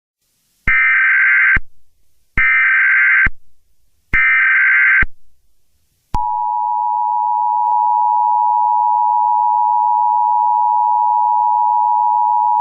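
Emergency Alert System tones: three one-second bursts of buzzy digital data (the SAME header that encodes the alert), then about six seconds in the steady two-tone EAS attention signal starts, a harsh held chord that announces an emergency message.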